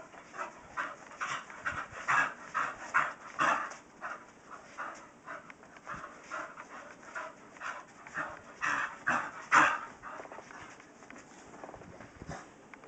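Staffordshire Terrier panting in quick, uneven breaths, about two to three a second, from the exertion of spinning to chase her tail.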